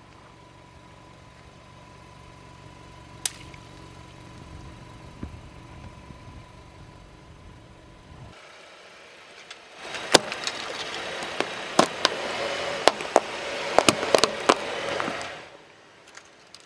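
A car engine running low and steady, then, after about ten seconds, a burst of crunching with many sharp cracks as a brittle white fake hand is crushed to pieces under a car tyre.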